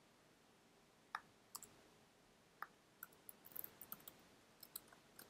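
Faint clicks of computer keyboard keys being typed: a few scattered keystrokes, then a quick run of them about three seconds in and a few more near the end.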